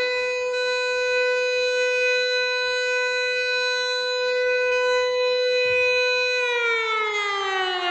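Civil defence warning siren sounding Finland's public alarm signal: it holds one steady pitch for about six seconds, then slides down in pitch near the end.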